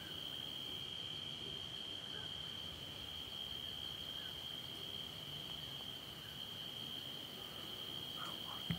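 Crickets calling in a steady, unbroken high-pitched trill over faint background hiss, with one short knock near the end.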